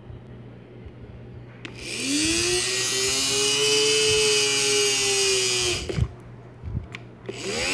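Rebuilt Federal Signal Aerodynic light bar DC motor switched on with a click, spinning up with a rising whine to a steady high hum and hiss, its commutator freshly cleaned and resurfaced. It cuts off suddenly about six seconds in, and after a couple of clicks it spins up again near the end. Part of the noise comes from the motor resting on the case it stands on.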